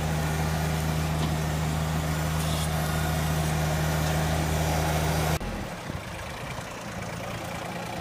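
Compact tractor engine running steadily at constant speed. About five seconds in, the sound cuts off abruptly and is replaced by a quieter engine idling.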